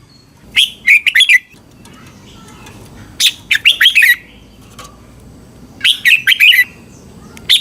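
Red-whiskered bulbul singing short, rapid phrases of a few whistled notes, repeated about every two and a half seconds, with three phrases and a fourth starting near the end.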